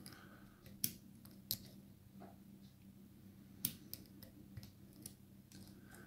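Small metallic clicks of a hand-held lock pick working the pins inside a brass pin-tumbler lock cylinder, a few sharp ticks spaced irregularly, the loudest about two-thirds of the way in.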